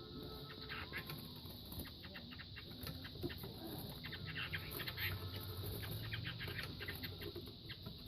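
Two fighting gamecocks scuffling, with quick irregular scrapes, pecks and wing flaps.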